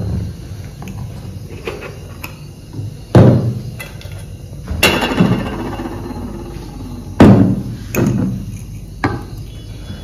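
Kitchen utensils and cookware knocking against each other: a handful of sharp knocks with brief ringing, the loudest about three seconds in and about seven seconds in.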